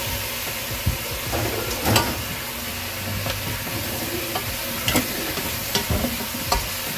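Cubed squash sizzling in a stainless steel stockpot over sautéed garlic, onion and ginger, stirred with a wooden spatula. The steady sizzle is broken by a handful of sharp clicks as the spatula knocks and scrapes against the pot.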